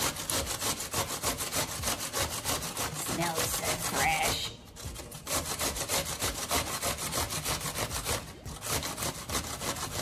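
A cucumber being grated on a stainless-steel box grater: a fast, even run of rasping strokes, broken by short pauses about halfway through and again near the end.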